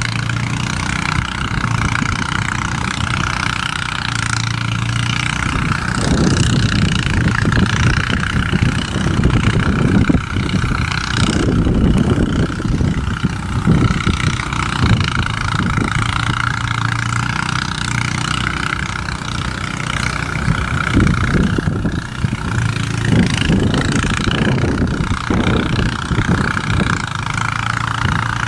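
A steady engine-like drone with uneven low rumbling, holding an even level.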